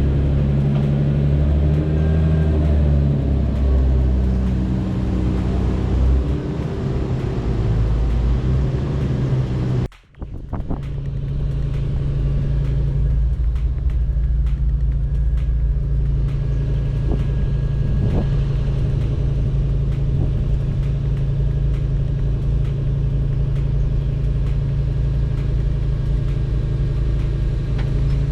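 A car engine running, low and loud. There is a short break about ten seconds in, after which the engine holds a steady low drone.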